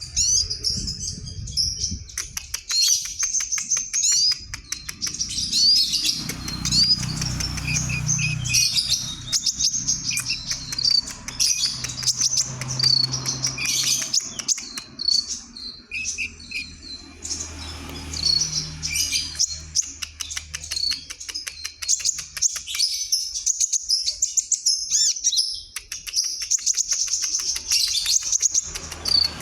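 Oriental magpie-robin (Bornean 'konin') singing continuously and vigorously, a long run of loud, varied whistles, warbles and rapid trills with hardly a pause.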